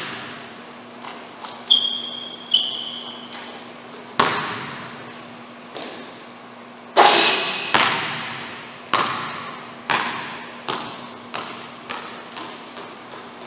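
A basketball hitting a hardwood gym floor, each hit ringing out in the big empty hall. A few separate bounces come early, two of them with short high sneaker squeaks. About seven seconds in the loudest bang comes, and then bounces that come quicker and softer as the loose ball dies down.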